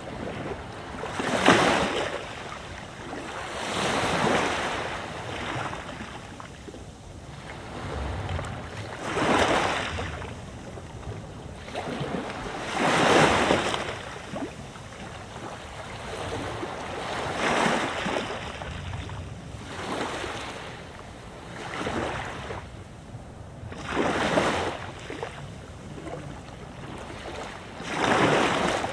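Sea waves breaking on the beach, a surge swelling and washing back about every three to four seconds, uneven in strength. Wind blows steadily underneath.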